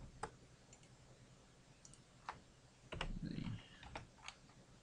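A handful of separate sharp clicks from a computer mouse and keyboard, spaced irregularly, with a short low murmur of a voice about three seconds in.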